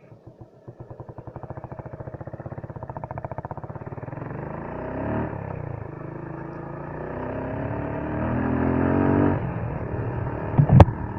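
Motorcycle engine running with an even firing pulse, then revved and pulling away: its pitch rises and it grows louder before easing off. A sharp knock comes near the end.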